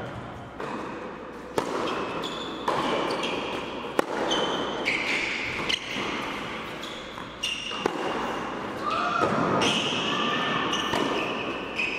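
Tennis balls bouncing and being struck on indoor hard courts: single sharp impacts every second or two, echoing in a large hall, with short high squeaks from sneakers on the court.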